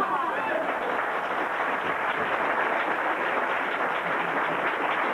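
Theatre audience applauding steadily, with laughter fading out at the start.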